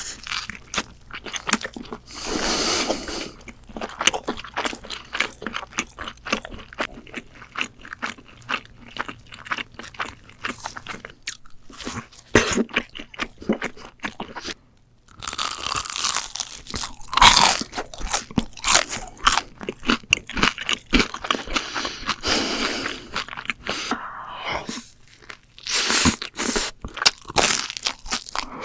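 Close-miked crunchy food being bitten and chewed: a fast, dense run of crisp crunches, broken by a brief pause about halfway.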